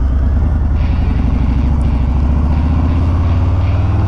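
Harley-Davidson Low Rider ST's Milwaukee-Eight 117 V-twin running under way, a loud, steady pulsing exhaust note that rises slightly in pitch near the end as the engine speeds up.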